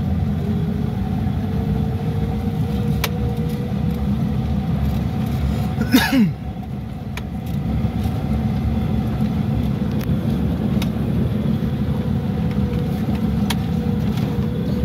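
Car driving over a grassy dirt track, heard from inside the cabin: a steady low rumble of engine and tyres. A few sharp clicks, and a loud bump about six seconds in.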